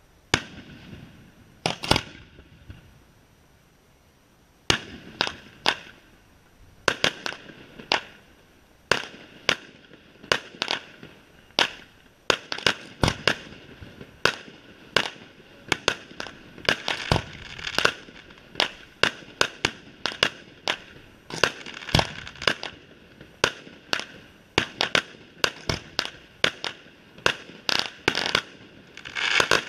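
Aerial fireworks display: shells bursting with sharp bangs. Two bangs come near the start, then a lull of about two seconds, then a string of reports that quickens into a rapid barrage of several bangs a second.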